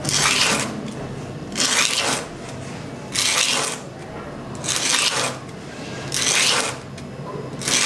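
Large needle scraped across a square of sandpaper in six scratchy strokes, about one every one and a half seconds. The needle is held bare in the fingers, not yet fitted into a paper cone to make it louder.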